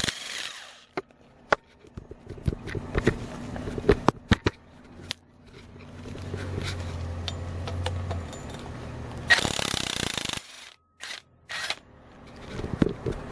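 Work noises from handling metal parts and tools: scattered clicks, knocks and scrapes, a low hum through the middle, and a burst of noise lasting about a second near ten seconds in.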